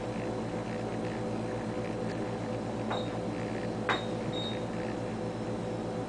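Ultrasound machine's steady hum. A little after three seconds in come two sharp clicks and three short high beeps as measurement calipers are set on the scan.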